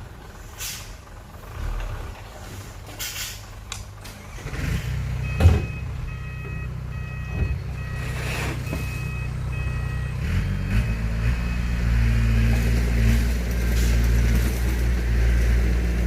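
Heavy diesel engine running and building up in power, with a reversing alarm beeping a little more than once a second for several seconds in the middle, and a single sharp knock shortly before the beeping starts.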